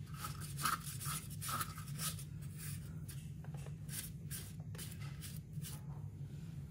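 A silicone spatula scraping chocolate batter off the sides of a stainless-steel mixing bowl in repeated short strokes, over a steady low hum.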